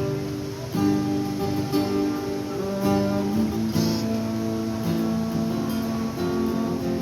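Acoustic guitar strummed, chords struck about once a second and left ringing between strokes.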